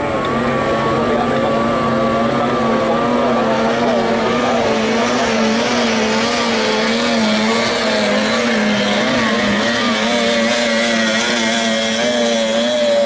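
Outboard motor of a 30 hp tunnel racing boat running at high revs, a steady note that wavers slightly in pitch, with a rising hiss of water and spray about halfway through as the boat speeds past.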